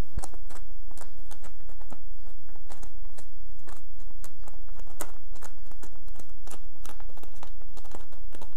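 Sheet of white vinyl wrap film crinkling and crackling as it is handled and lifted, with many irregular sharp crackles.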